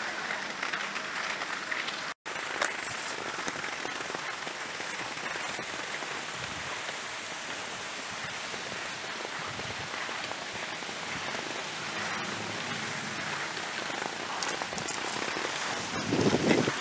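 Steady hiss of skis sliding over the snow track while being towed up a drag lift. The hiss breaks off for an instant about two seconds in and swells to a louder rumble near the end.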